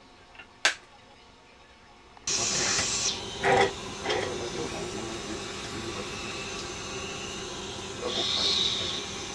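One short, sharp swish a little under a second in, as a large serrated combat knife is drawn from its hard plastic sheath. About two seconds in, a steady hiss from dental-chair equipment starts abruptly, with a few short bursts of voices over it.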